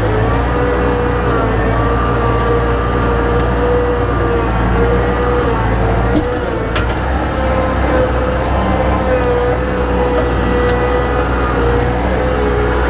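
Engine running steadily, with small wavers in speed and a brief dip about six seconds in.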